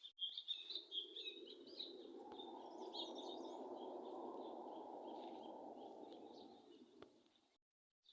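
Small birds chirping in high, quick notes for the first few seconds, then a low, steady rushing noise that swells for several seconds and fades out.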